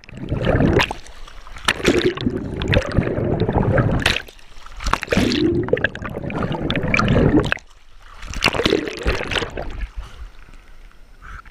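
Sea water sloshing and gurgling against a submerged action camera as it goes under and comes back to the surface, in loud surges with a short lull about two-thirds of the way through.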